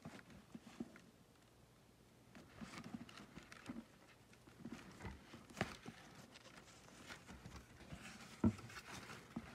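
Hands handling a ribbon-tied cardboard gift box: soft rustling of the satin ribbon and box with scattered light taps, and a couple of sharper knocks, the loudest near the end.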